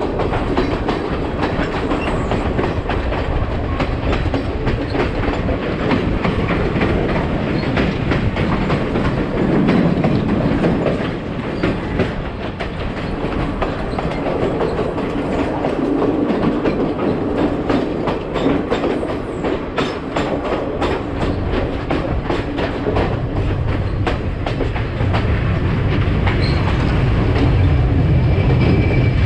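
Sri Lanka Railways passenger train running along the track, its wheels clicking steadily over the rail joints over a continuous rumble. The low rumble grows heavier in the last few seconds.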